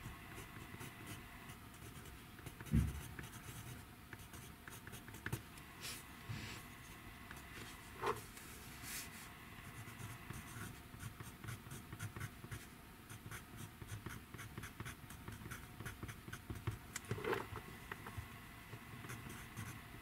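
Pencil writing on notebook paper: a steady run of short scratching strokes, with one dull thump against the desk about three seconds in.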